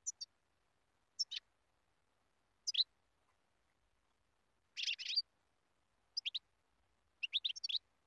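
European goldfinch calling in short, high bursts, six in all, most of them quick downward-sweeping notes. About five seconds in comes a longer twittering phrase, and near the end a rapid string of notes.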